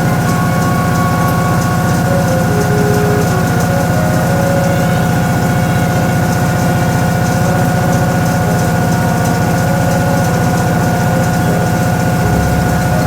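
Toshiba ZABOON top-loading washing machine running steadily, a constant motor hum with a few steady tones over it.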